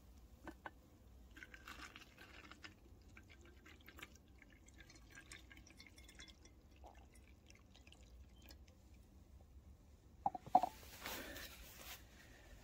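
Liquid poured into a cloth-lined filter funnel, trickling and dripping through into a plastic jug, faint. A few louder knocks come about ten seconds in, followed by a short hiss.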